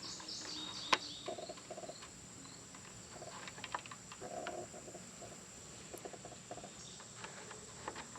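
Quiet outdoor background with faint animal chirping in several short, rapid pulsed bursts, and a sharp click about a second in.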